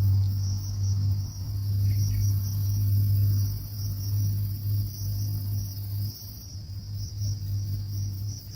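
Insects chirring steadily in a high, rapidly pulsing chorus, over a loud, steady low hum.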